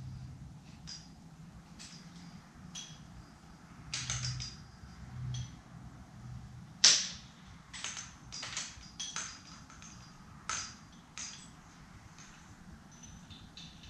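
Light stand and lamp-socket mount being handled and screwed together: a scattered series of small plastic and metal clicks and knocks, with one sharp, louder click about halfway through.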